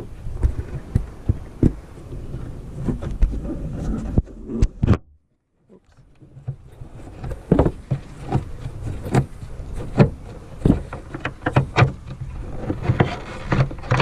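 Wind buffeting the microphone as a low rumble, with scattered clicks and knocks from a Phillips screwdriver and hands working the screws of a licence plate light housing. The sound cuts out completely for about a second near the middle.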